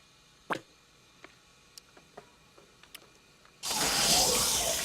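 A few faint clicks, then, about three and a half seconds in, a loud rush of gushing water starts suddenly and keeps going.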